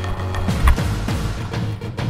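Background music with heavy drums and a strong beat, with one loud thump about a third of the way in.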